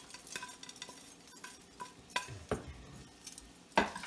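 Metal spoon and knife scraping and tapping on a plate as fried pork-rind crumbs are pushed off into a skillet, with scattered clinks and a louder clatter near the end.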